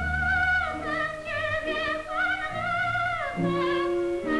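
Operatic soprano singing long, high held notes with a wide vibrato, moving between them in short runs, over an orchestra's low sustained accompaniment.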